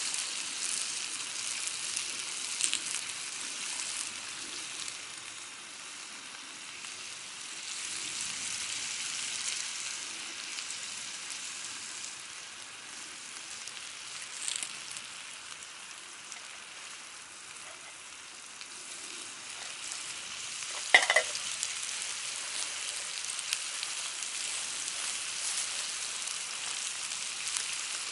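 Stir-fry sizzling in a pan over a campfire with miso-butter sauce going in, a steady hiss with small ticks. One sharp knock with a short ring about three-quarters of the way through.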